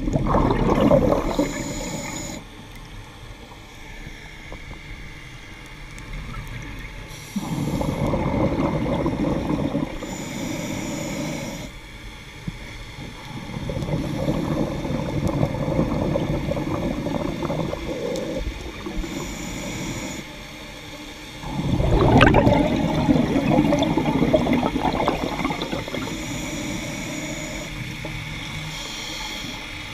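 A scuba diver breathing through a regulator, heard underwater. There are four long bursts of exhaled bubbles several seconds apart, with a faint high hiss of the inhaled breath between them.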